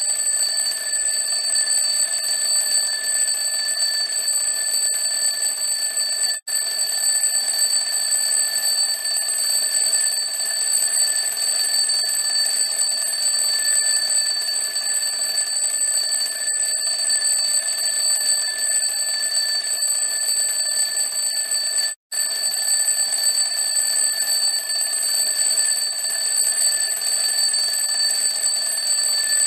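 Old-fashioned alarm clock ringing without let-up, at an unchanging pitch and level. It breaks off for a split second twice, about six seconds in and about twenty-two seconds in.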